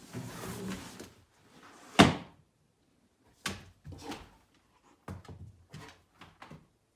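A loud knock about two seconds in, then scattered lighter knocks and taps, as a dog bumps about a raised dog cot on a hardwood floor.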